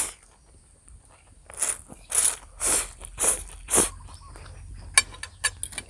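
A person eating close to the microphone: five loud, noisy mouth sounds about half a second apart, then a few sharp clicks near the end.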